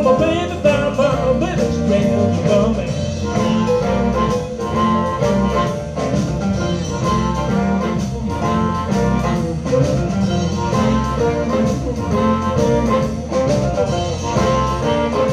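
Live blues band playing: amplified harmonica wailing over electric guitars, piano, bass guitar and drums keeping a steady beat.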